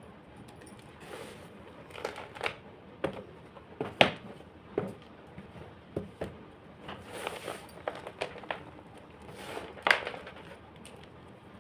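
Homemade gym chalk being crushed: a series of irregular dry crunches and crumbles, the two loudest about four seconds in and about ten seconds in.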